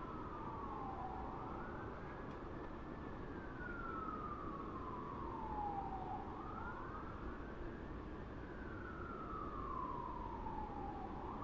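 Distant American fire truck siren in a slow wail: each cycle rises quickly, then falls slowly over about four seconds, repeating about every five seconds. A steady low rumble runs underneath.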